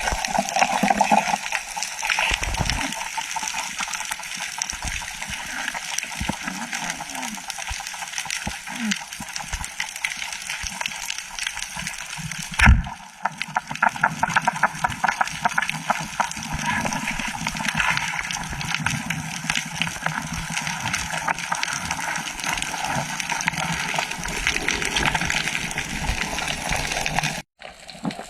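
Water splashing, sloshing and gurgling, with irregular small clicks and a single louder knock partway through; the sound breaks off briefly near the end.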